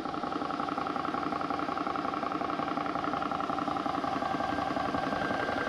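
Air Venturi Nomad portable PCP compressor running steadily with a fast rhythmic pulse, filling an Air Venturi Avenger air rifle's air cylinder.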